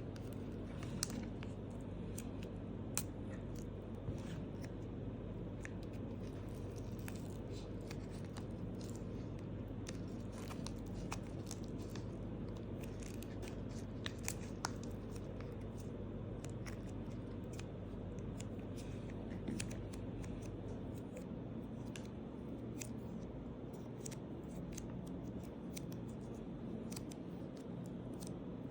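Scattered small clicks and taps from hands working modelling clay and small tools, over a steady low hum.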